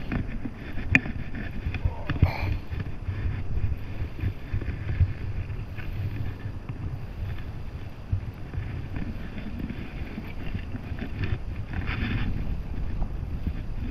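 Wind buffeting the microphone over water lapping and splashing in the shallow margin, with a few knocks and rustles as a carp is handled in a mesh landing net.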